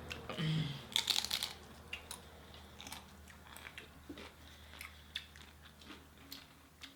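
Close-miked eating: a crunchy bite about a second in, followed by chewing with scattered small crackling clicks.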